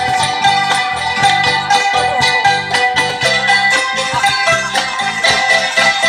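Traditional Thai instruments playing a modern song: wooden xylophones ringing out quick runs of struck notes over a steady beat of low bass notes, with an amplified long-necked lute.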